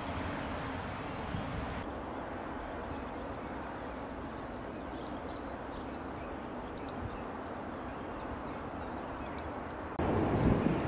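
Distant jet airliner engines running as a steady low rumble, with small birds chirping faintly over it. Near the end the sound jumps to a louder, gusty rush from a Bombardier Dash 8 Q400 turboprop on approach.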